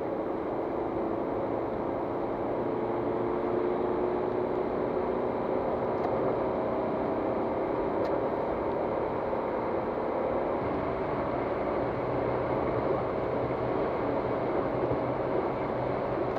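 Steady road noise inside a car cruising at motorway speed: tyre and wind noise with the engine's drone underneath, its pitch drifting slowly. There are a couple of faint clicks along the way.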